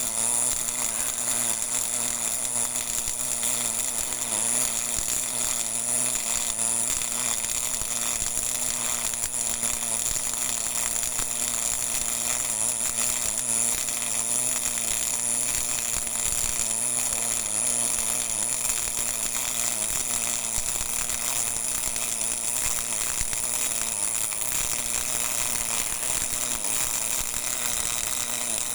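MIG (GMAW) welding arc burning continuously: a steady, crackling buzz.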